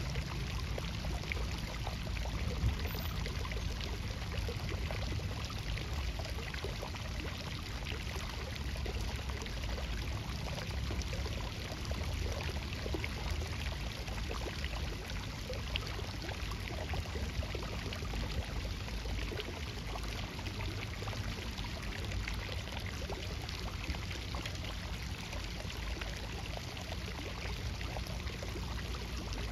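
Water running steadily: an even, unbroken rush of pouring water.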